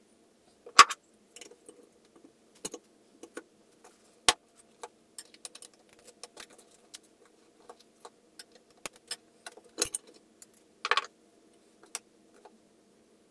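Irregular metallic clicks and clinks of steel parts being handled: a valve spring compressor being levered on a Porsche M96 cylinder head as valve springs, retainers and collets are released. The loudest clinks come about a second in and again near the end.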